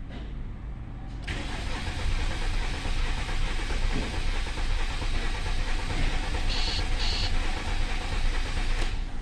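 Car engine being turned over on the starter motor for several seconds, starting about a second in. Two short high chirps come near the end.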